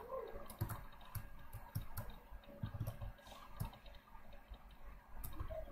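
Irregular, faint clicks of a computer mouse, a dozen or so spread unevenly.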